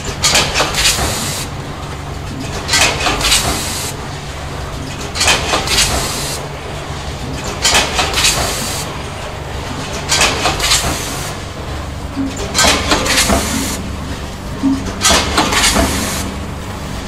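Automatic rotary pre-made pouch packing machine running: a steady low hum with short clusters of air hiss from its pneumatic actuators, recurring about every two and a half seconds as the turntable indexes each pouch through filling and sealing.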